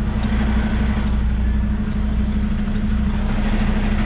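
Semi truck's diesel engine running steadily at low revs as the rig is backed slowly, a constant low hum.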